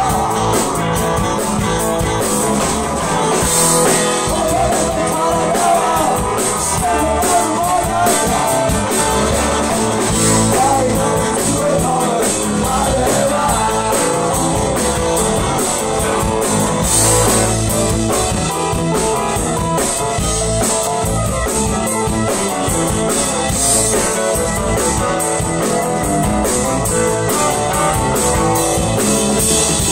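A live rock-blues band playing loudly and steadily: electric guitar, electric bass, drum kit and saxophone together, with a wavering melody line over the band in the first half.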